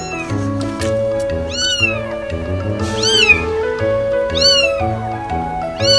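Kittens meowing again and again, high mews that rise then fall in pitch, about one every second and a half. Background music with a steady beat plays underneath.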